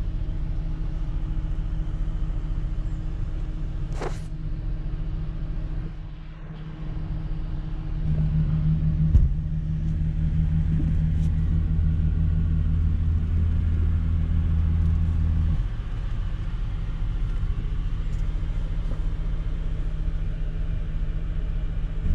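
Car engine running steadily, louder and deeper for about seven seconds from about eight seconds in, then settling back. A sharp click about four seconds in and a knock about nine seconds in.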